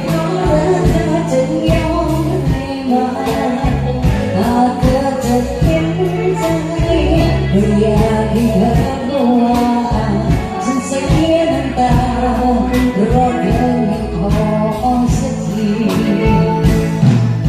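A song with a singer over a steady drum beat and bass, played as dance music.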